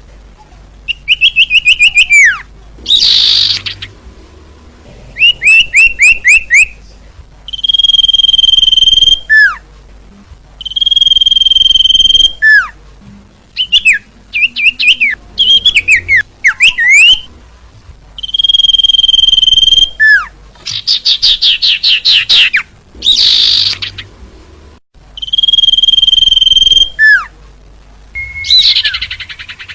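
Sirtu bird singing vigorously, phrase after phrase. Steady held whistles alternate with fast runs of short down-slurred notes and quick rising and falling whistled slurs.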